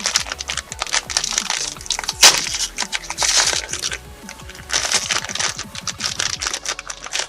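Small plastic bag being torn open and handled, crinkling and crackling in many irregular snaps, with one sharp crack about two seconds in. Background music plays underneath.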